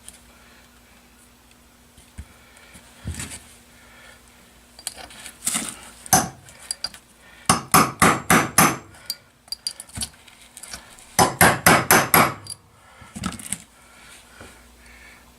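Hammer blows driving a stuck old seal out of an outboard motor part: a few scattered taps, then two quick runs of about six blows each, about five a second, and a last single blow. The seal is stubborn and only starting to move.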